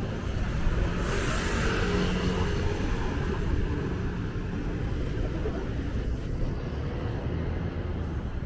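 Street traffic: a steady low rumble of vehicles, with one passing close about a second in.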